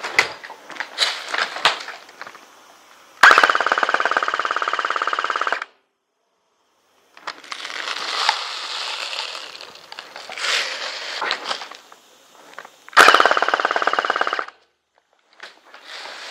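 Airsoft electric gun firing two long full-auto bursts of rapid, evenly spaced shots, the first about two and a half seconds long and the second about a second and a half, with quieter scattered clatter and noise between them.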